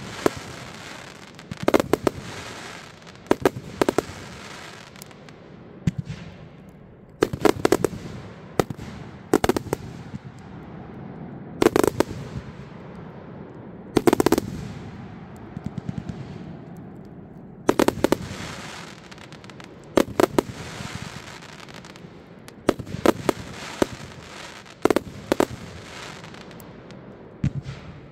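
A 216-shot firework cake firing salutes: loud bangs in quick clusters of two to four, about every two seconds, with a hissing haze between the volleys.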